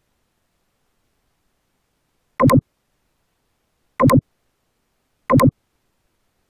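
Mouse-click sound effect added by screen-recording software, three times about a second and a half apart, each a short synthetic double click over digital silence.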